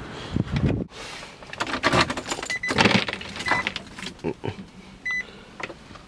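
Someone climbing into a car: rustling clothing and irregular knocks and clunks of the door and seat, with a little key jingle. About five seconds in the car gives a short electronic warning beep.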